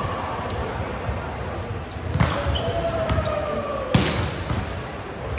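A basketball bouncing on a gym court during a game, with repeated low thuds, two sharp bangs about two and four seconds in, and short high squeaks.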